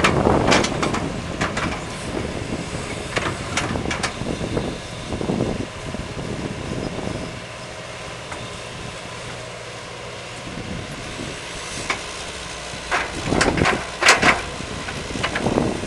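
Hitachi excavator's diesel engine running while it works sand, with scattered knocks and clanks. Louder and busier for the first several seconds, then settling to a steadier, quieter engine drone about seven seconds in, with a few more knocks near the end.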